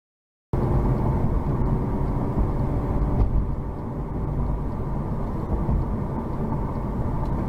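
Steady rumble of engine and road noise from a car driving, picked up inside the cabin by a dash cam. It starts abruptly about half a second in.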